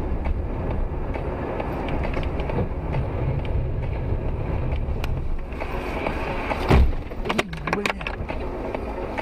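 Steady in-cabin road and engine noise of a car driving on a highway. About seven seconds in there is a loud thump, followed by a few sharper knocks.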